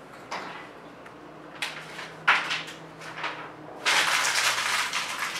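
A sheet of paper handled in the hands: a few short rustles, then a longer crinkling about four seconds in as it is squeezed and crumpled.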